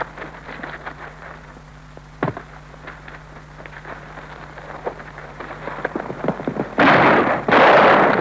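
Crackly Super 8 optical film soundtrack with a steady low projector hum and a single sharp crack about two seconds in, then two loud gunshots near the end.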